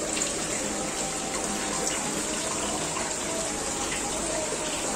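Steady rushing, bubbling water in a shallow goldfish tub, with air bubbles rising through it.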